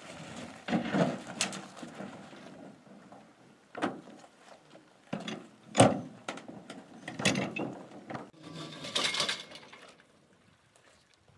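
Aluminium fishing boats being slid off a boat trailer: irregular metallic scrapes, knocks and clatter, with one sharp bang about halfway through.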